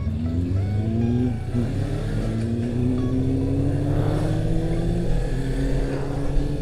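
Suzuki V-Strom 250's parallel-twin engine accelerating, its pitch climbing and dropping back with an upshift about one and a half seconds in and another about five seconds in, then holding steady.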